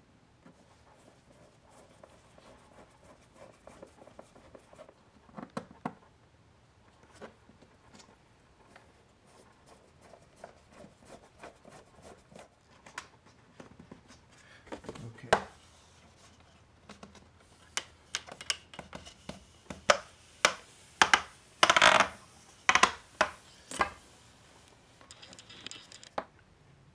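Hand screwdriver turning a small screw through an aluminium light-strip channel into a wooden bed rail, with light scraping and clicking. Later comes a run of about ten sharp clicks and knocks as the metal channel and its end cap are handled and pressed into place against the wood.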